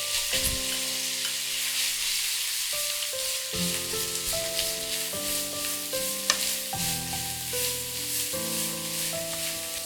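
Sauerkraut and pork belly sizzling in hot oil in a frying pan as they are stir-fried, with a steady hiss and small scattered ticks. Soft background music of held notes plays underneath.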